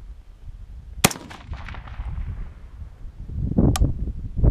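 A single shot from an AR-style rifle with an 18-inch heavy fluted 5.56 NATO barrel about a second in: a sharp crack followed by a decaying echo. A fainter sharp click comes near the end.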